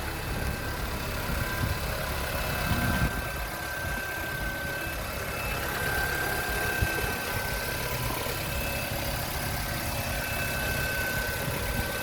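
Honda CR-V engine idling steadily as it warms up after a thermostat replacement, with a faint steady high whine over the low rumble.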